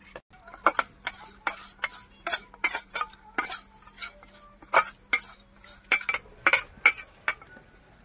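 Small whole fish and peeled prawns being tossed with turmeric and salt in a stainless-steel bowl. The food knocks and scrapes against the metal in quick, irregular strokes, about three a second.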